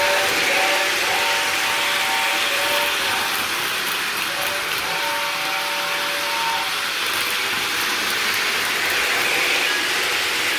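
Lionel LionChief Hogwarts Express O gauge toy steam locomotive running on its track, its onboard speaker playing a steady steam chuff. Held multi-note tones, fitting its whistle, sound near the start and again around the middle.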